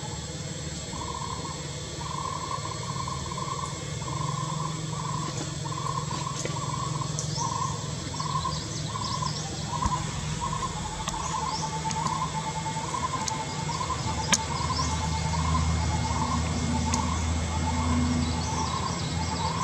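Birds calling outdoors: one repeats a short mid-pitched note over and over, about one and a half times a second, while others chirp higher up now and then. A low steady rumble lies underneath.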